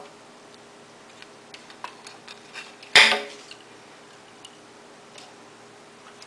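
Small clicks and metallic clinks as the Excalibur scroll saw's upper blade clamp and the wooden workpiece are handled, with one sharp, louder clack about three seconds in.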